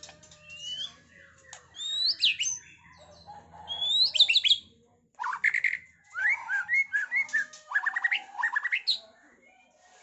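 White-rumped shama (murai batu) singing: sweeping whistled phrases around two and four seconds in, then a busier run of varied chips, trills and slurred whistles that stops about a second before the end. The song is made up of mimicked 'isian' phrases taken from other songbirds.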